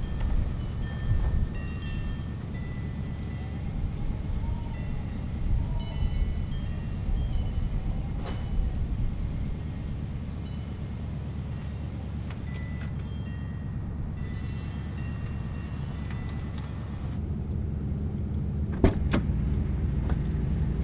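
Car engine running steadily, a low rumble throughout, with a single sharp click near the end.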